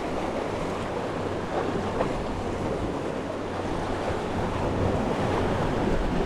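Sea surf washing onto the shore in a steady wash, with wind rumbling on the microphone.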